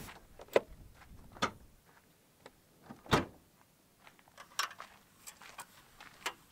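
Scattered light clicks and knocks with one louder thump about three seconds in, as a van door is handled and a folding aluminium camp table is taken out.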